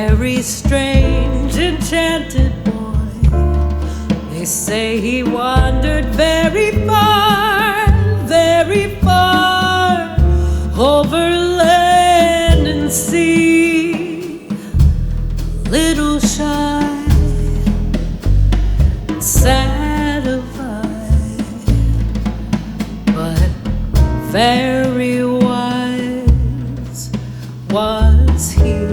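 Jazz combo playing an instrumental passage: a baritone saxophone carries the lead line, with vibrato on its held notes, over piano, acoustic bass and drums.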